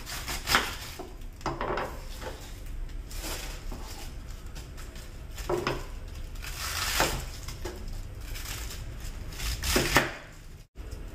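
Knife slicing through a head of cabbage on a wooden cutting board: irregularly spaced cuts through the leaves and knocks of the blade against the board.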